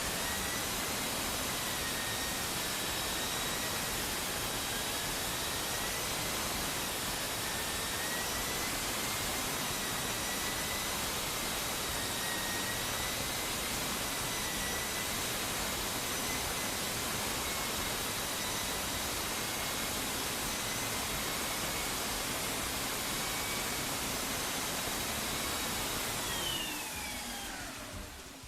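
Central vacuum with an air-driven power head running steadily over carpet, a loud rush of suction with a steady high whine. Near the end it is switched off and winds down, its pitch falling as it fades.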